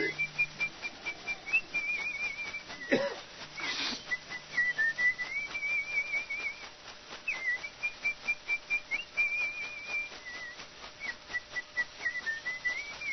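A shaman whistles an icaro, a wavering, trilled ceremonial melody. With it comes the steady shaking of a chakapa leaf-bundle rattle, about three beats a second. A single sharp sound comes about three seconds in.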